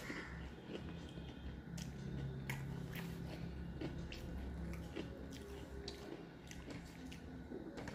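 Close-miked chewing of a mouthful of rice and fish curry, with irregular sharp mouth clicks, and fingers mixing rice on the plate.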